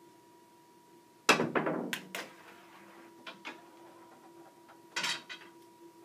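A cue stick strikes a billiard ball about a second in, with a loud knock, followed by a quick run of sharp clicks as the ball hits the cushions. Single clicks follow, then a louder clack near the end as the ball knocks along the ramp rails.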